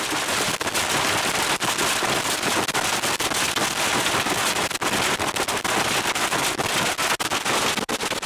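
Large hailstones pelting a car's roof and windshield, heard from inside the vehicle. They make a dense, unbroken clatter of hard hits over a steady rushing noise.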